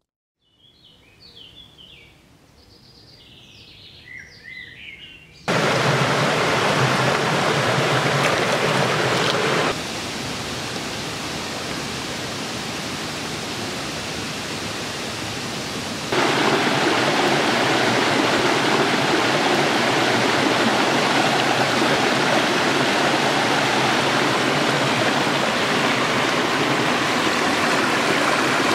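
A few faint bird chirps over near quiet, then a shallow forest stream's running water sets in suddenly about five seconds in and carries on as an even rushing. The rushing drops somewhat about ten seconds in and rises again about sixteen seconds in.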